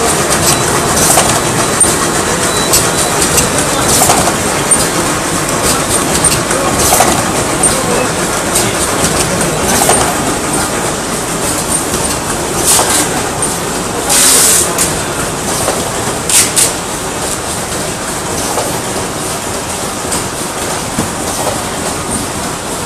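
Pillow-type flow-wrapping and cartoning machine line running: a steady mechanical clatter with a louder clack about every three seconds. Two short hisses come a little past halfway.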